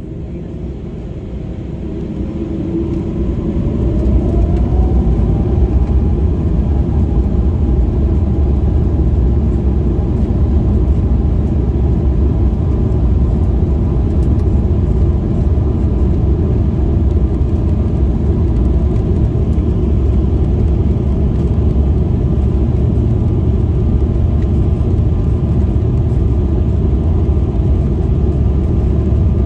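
Embraer E195-E2's geared turbofan engines heard from inside the cabin spooling up to takeoff thrust, a whine rising in pitch and the sound growing louder over the first few seconds. Then a steady loud rumble of engines and undercarriage as the airliner accelerates down the runway on its takeoff roll.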